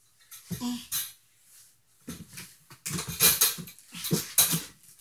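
A person imitating a dog: a short whine about half a second in, then a quick run of short, breathy dog-like huffs from about two seconds in.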